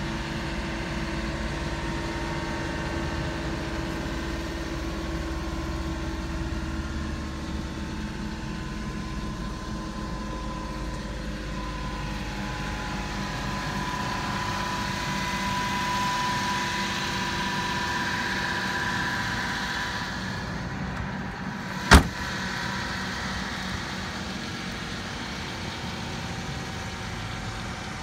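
Mitsubishi Minicab kei truck's engine idling steadily, with one sharp bang about three-quarters of the way through.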